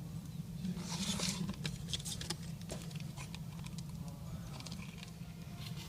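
Small clicks, taps and a brief rustle of hands handling tablet parts during a screen repair, over a steady low hum.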